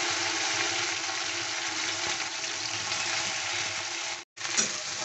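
Cut okra sizzling hard in hot oil with whole cumin seeds in a kadai, a steady loud frying hiss right after the okra went in. It cuts out for a moment a little past four seconds in, then resumes.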